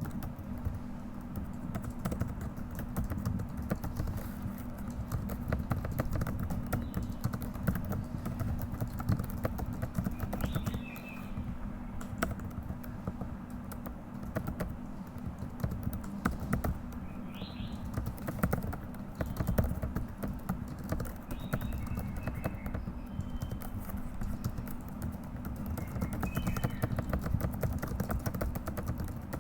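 Continuous fast typing on a computer keyboard: a dense, uneven run of key clicks.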